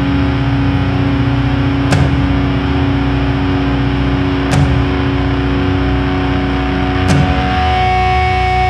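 Slow heavy metal: a heavily distorted guitar chord drones, with a drum-and-cymbal hit about every two and a half seconds, three hits in all. The chord changes near the end.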